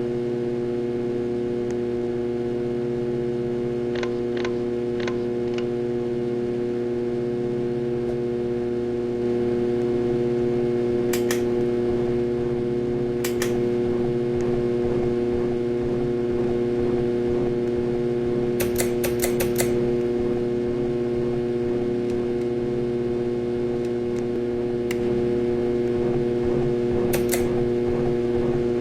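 Harbor Breeze Ocracoke ceiling fan motor running with a very loud, steady electrical hum on one strong tone, the sign of a bad motor. Sharp clicks come now and then, a few of them in quick runs.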